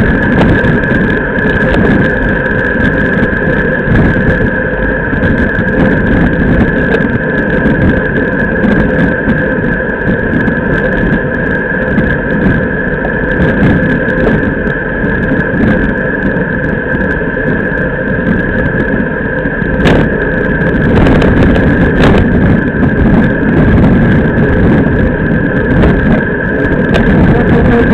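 Road bike ridden at race pace, heard through a camera mounted on the bike: a steady rumble of tyres on asphalt and wind on the microphone, with a steady high hum. Two sharp knocks come about twenty and twenty-two seconds in.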